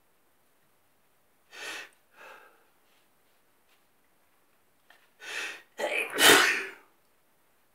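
A person sneezing in bed. There are two short, quieter bursts about a second and a half in. Then a louder breath-like burst comes, followed by one loud sneeze about six seconds in.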